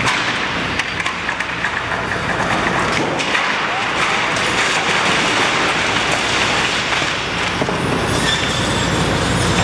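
Demolition excavator's hydraulic shear tearing down a steel-framed glass roof: metal grinding and screeching, with glass breaking and debris crashing over the excavator's engine.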